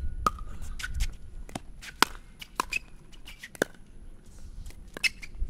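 Pickleball rally: paddles striking the hollow plastic ball, a string of sharp pops at uneven intervals, several in quick succession early on and a few more spread out later.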